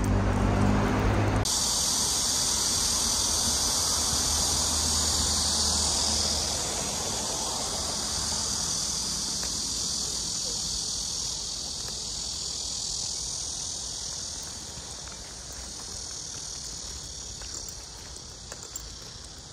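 A low steady hum cuts off abruptly about a second and a half in. It gives way to a dense, steady, high-pitched buzzing of a summer cicada chorus that slowly fades.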